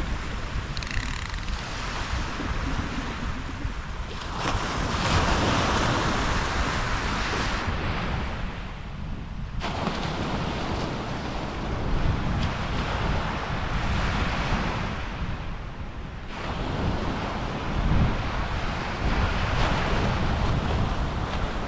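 Surf breaking and washing up a sandy beach, swelling and fading every five or six seconds, with wind buffeting the microphone.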